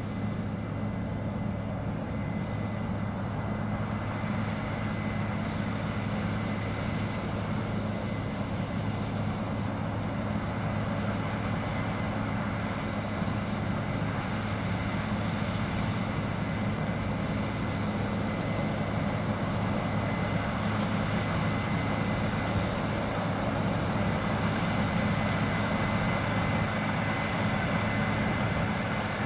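Combine harvester running at working speed while cutting cereal, with a tractor pulling a grain trailer alongside: a steady machine drone with a thin high whine over it, slowly growing louder as the machines come closer.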